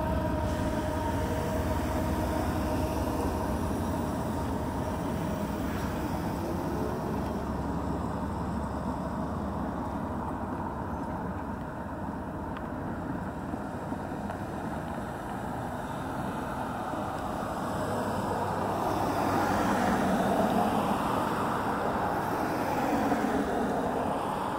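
Road traffic: cars driving over a railroad crossing, with steady tyre and engine noise and one passing louder about twenty seconds in. The last of the passing train fades out in the first second or so.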